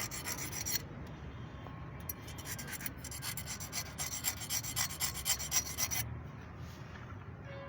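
Rasping of a hand tool being scraped back and forth in quick strokes: a short spell at the start, a few scattered strokes, then a dense spell from about three to six seconds in.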